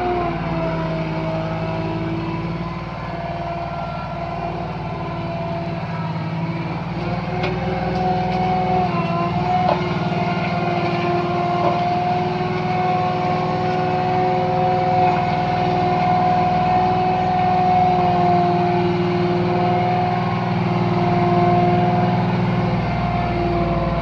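Compact skid steer loader running steadily as it drives with a loaded, raised bucket, its engine drone carrying a steady high whine that shifts in pitch a little now and then.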